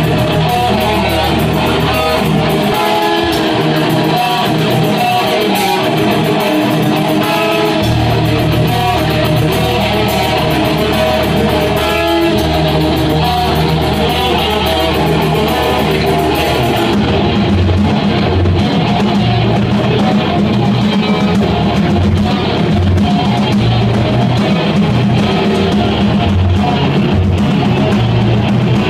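A heavy metal band playing live: distorted electric guitars over a drum kit, loud and dense. The bass drops out for a few seconds near the start and comes back, and about halfway through the music shifts into a fast, low chugging riff with less cymbal wash.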